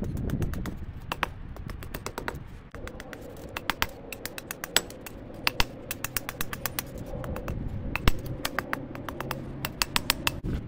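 Ball-peen hammer striking a hot piece of old file held on a steel anvil: quick runs of sharp metal-on-metal blows, several a second, with short pauses between runs.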